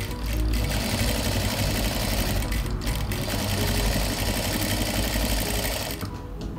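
Jack F4 industrial lockstitch sewing machine running steadily while topstitching the edge of a fabric binding, stopping about six seconds in. Background music plays underneath.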